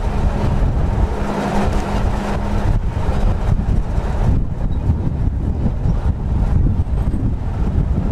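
Victorian electric mountain tramcar running on its track, a loud low rumble of the moving car mixed with wind buffeting the microphone. A steady hum stops about three seconds in.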